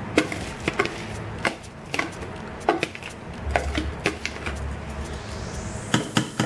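Raw rice being tipped from a plastic colander into a pressure cooker pot: a series of sharp, irregular taps and knocks as the colander strikes the pot and rice grains fall in. The loudest is a pair of knocks about six seconds in.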